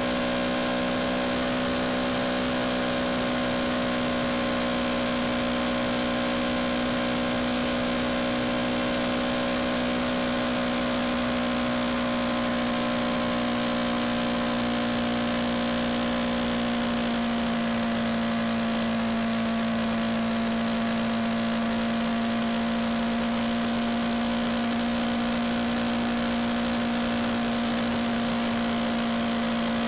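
Yamaha MT-125's single-cylinder four-stroke engine running at a steady cruising speed, a constant drone with wind rush over it; the engine note eases slightly a little past halfway through.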